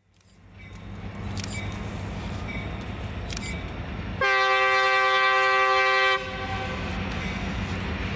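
Diesel locomotive's air horn sounding one long chord-like blast of about two seconds, a little past the middle, over the steady rumble of the locomotive's engine as the train passes a grade crossing.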